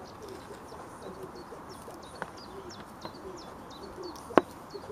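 Birds calling by a lake: a quick series of short, high, falling chirps, about three a second. A single sharp click about four and a half seconds in is the loudest sound.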